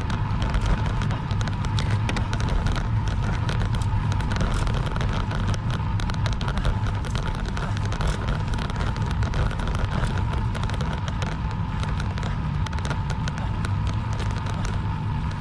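Wind and road rumble on the microphone of an action camera riding on a racing road bicycle: a steady, loud low rumble with constant crackle.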